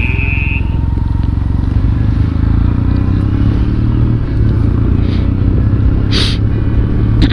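Motorcycle engine running at low road speed while riding slowly along a city street.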